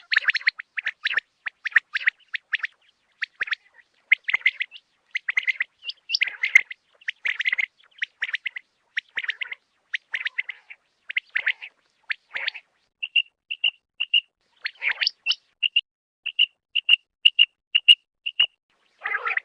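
Quail (batair) calling over and over: clusters of short, sharp notes, then from about two-thirds of the way in a run of evenly spaced short whistled notes, about two a second.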